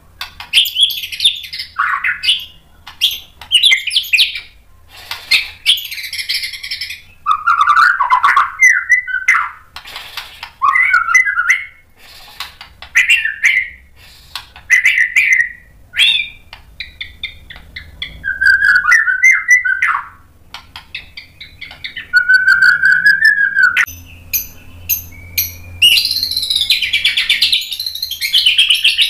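Male white-rumped shama (murai batu) singing a loud, varied song: whistled phrases, rapid trills and sharp clicking notes, with a fast, dense run of repeated notes near the end.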